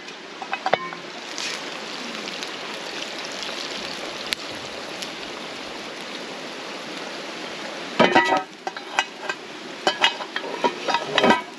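Food sizzling in a hot camp oven, a steady hiss. About eight seconds in, a quick run of sharp clinks and taps starts over it.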